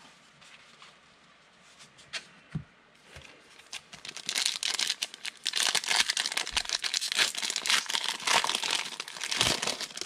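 Foil trading-card pack being torn open and its wrapper crinkled in the hands: a dense crinkling from about four seconds in until just before the end, after a few light clicks.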